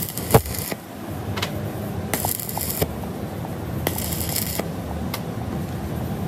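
Stick arc welding on a worn steering tie rod ball pin, building it back up to size: the arc crackles and hisses in three short bursts of under a second each, with a sharp click near the start.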